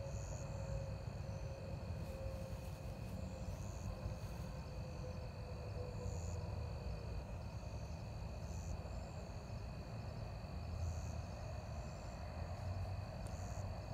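Outdoor ambience of insects chirring steadily, with short higher chirps every couple of seconds, over a low rumble.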